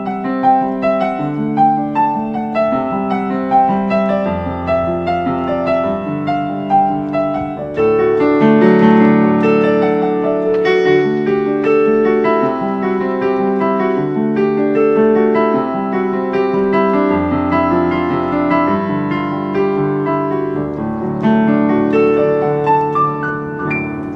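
Piano music: a steady run of notes over chords, with deep bass notes coming in about four seconds in and again around seventeen seconds, fading out near the end.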